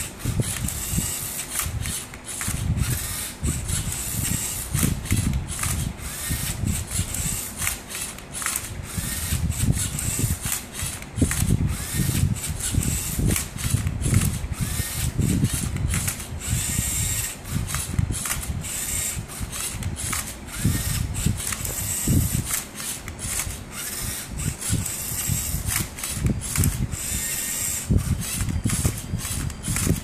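LEGO Mindstorms EV3 MindCub3r robot solving a Rubik's cube: its motors whir and its plastic tilt arm and turntable clatter as they flip and twist the cube, giving an irregular run of many quick clicks and knocks.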